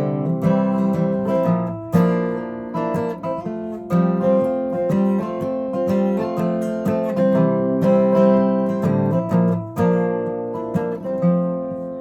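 Acoustic guitar playing an instrumental break of a folk song, strummed and picked, with new chords about every two seconds.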